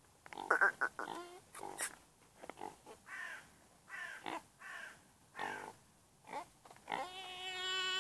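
A series of short, harsh animal calls, roughly one every half second to a second. Near the end comes one long call, held at a steady pitch for about a second and a half.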